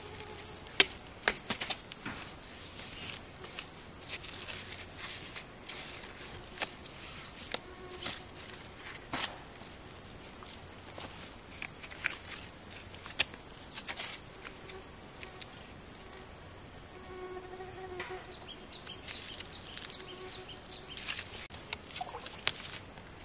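A steady high-pitched insect drone, with scattered sharp clicks and knocks over it, the loudest about a second in.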